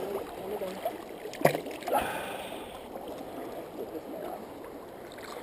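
Steady rush of moving water, with two sharp knocks about a second and a half and two seconds in.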